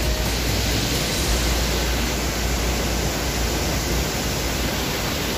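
Steady, even rushing noise of a tall waterfall's falling water. A heavy low rumble under it eases about four seconds in.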